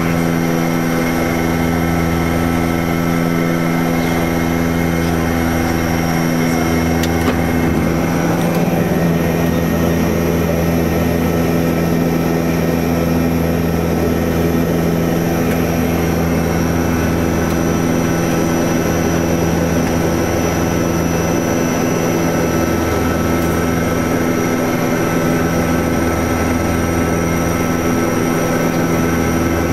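Antonov An-24B's two Ivchenko AI-24 turboprop engines and propellers droning steadily in flight, heard inside the cockpit. The low drone swells and fades slowly every few seconds.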